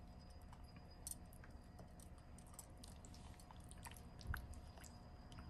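Faint wet squishing and small clicks of hands working a spice-paste marinade into a raw whole chicken and under its skin, with a soft thump about four seconds in.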